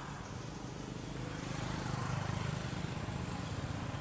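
A motor engine running steadily as a low hum, growing slightly louder about two seconds in.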